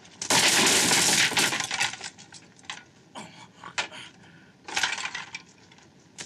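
Loud crash of wooden boards breaking as a body smashes into them, followed by scattered knocks of falling debris and another shorter clatter of wood near the end.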